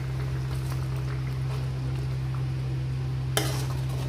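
Thick masala gravy bubbling in a metal pan while a steel spoon stirs it, over a steady low hum. One sharp clink of the spoon against the pan about three and a half seconds in.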